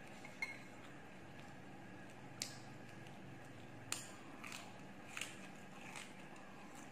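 A person eating crispy fried chicken wings, with about six short, sharp crunches and clicks of biting and chewing, faint over a steady background hiss.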